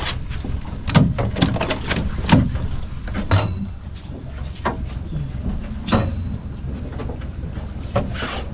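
Low steady rumble of a sportfishing boat's engine, with a string of irregular sharp knocks and clicks every second or so.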